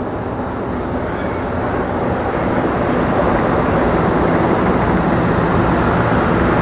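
Helicopter flying overhead, its steady drone growing gradually louder over the background of city traffic; probably a news helicopter.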